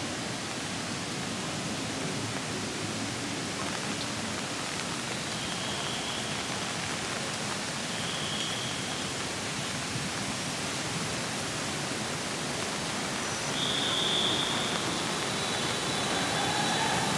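Steady hiss of heavy rain falling, an even wash of noise that grows a little louder near the end.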